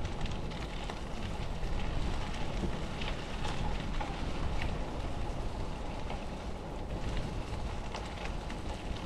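Bicycle and trailer rolling along the street: a low, steady tyre rumble with wind on the microphone and many small rattles and clicks.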